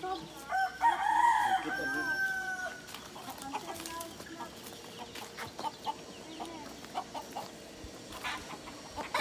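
A rooster crows once, loudly, starting about half a second in; the call rises and falls, then ends in a long held note. Scattered quieter chicken clucks follow.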